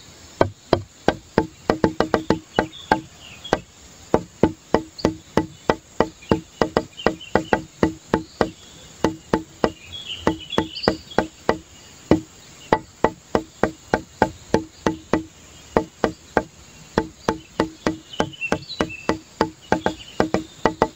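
Scissors snipping through folded paper in quick repeated cuts, about three or four sharp snips a second, with a few short pauses.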